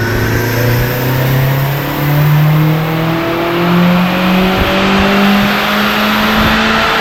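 Chevrolet Sonic RS's turbocharged 1.4-litre four-cylinder engine, fitted with a Z04 turbo upgrade, running hard under load, its pitch climbing steadily in steps as the revs rise.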